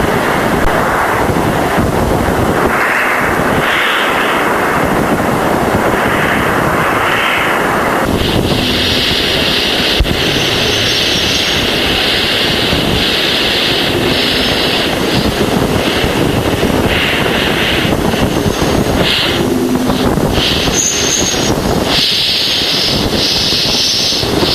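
Voyager 1 Plasma Wave Subsystem recording of Jupiter's magnetosphere played back as sound: a steady static-like hiss. About a third of the way in, a higher band of hiss cuts in and switches on and off in blocks. The uploader says these signals come mostly from the solar wind meeting the bow shock ahead of Jupiter's magnetosphere.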